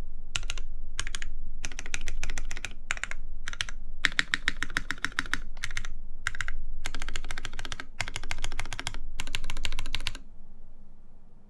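Typing in bursts on a TGR Jane v1.5 mechanical keyboard with lubed Cherry MX Black linear switches, GMK keycaps and a half FR4 plate: rapid, even keystroke clacks in short runs with brief pauses. The typing stops about ten seconds in.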